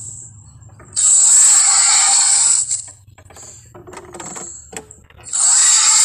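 Film-style dinosaur roar sound effect for an Allosaurus: a harsh, noisy roar about a second in that lasts nearly two seconds, and a second one starting near the end, with a few faint clicks between them.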